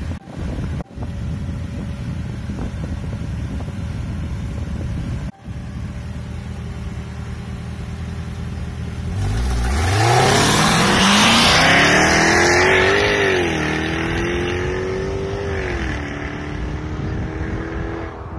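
Jaguar F-Type sports car engine, first running steadily at a low idle rumble, then launching hard about halfway through. The engine note climbs steeply, dips at an upshift and climbs again, loudest as the car passes, then levels off and falls away as it pulls into the distance.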